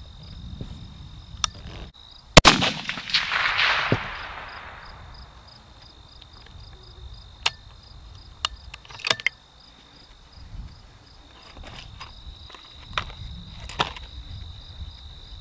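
A single rifle shot from a Browning X-Bolt in .300 Winchester Short Magnum about two seconds in, a sharp crack with an echo that fades over the next couple of seconds. A few sharp metallic clicks follow as the bolt is worked, while crickets chirp steadily.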